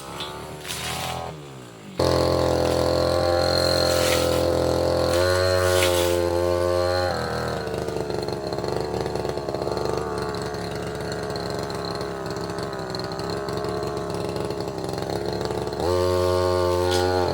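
Tasco 33 Pro brush cutter engine dropping back and slowing in the first two seconds, then opened up to steady high revs. From about seven seconds the note turns lower and rougher and wavers as the engine works under load, then it returns to steady high revs near the end, with a few sharp clicks along the way.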